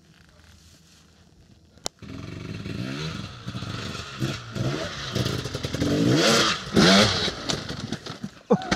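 Enduro dirt bike engine revving up and down in repeated bursts, starting about two seconds in after a single sharp click and growing louder toward the end.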